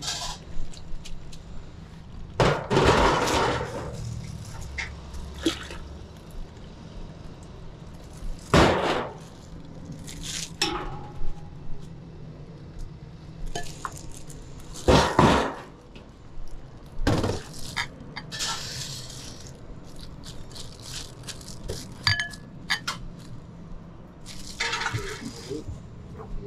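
Bowls, ladles and utensils clinking and knocking now and then as noodle soup is made and served. A low steady hum runs underneath.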